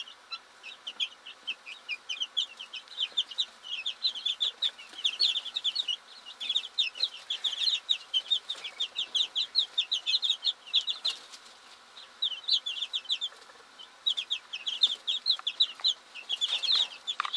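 Young white meat-breed chickens peeping continuously: a rapid, overlapping stream of short, high chirps, each falling in pitch.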